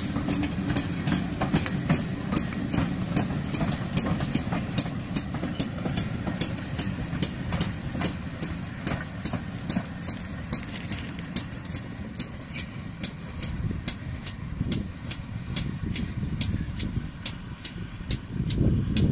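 Steam-hauled train of passenger coaches, behind a GWR pannier tank engine, rumbling along the line and fading as it draws away. A steady run of sharp high ticks, about two or three a second, sounds throughout.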